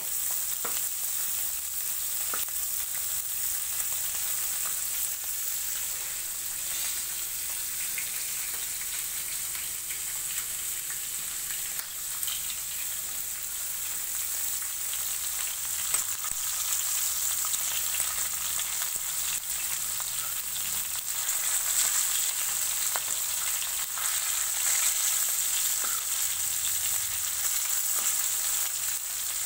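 Small masala-coated fish sizzling steadily in hot oil in a wide, shallow pan, with scattered short clicks and scrapes from a metal spatula turning them.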